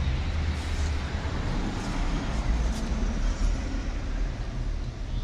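A steady low rumbling noise with a fainter hiss above it and no distinct events.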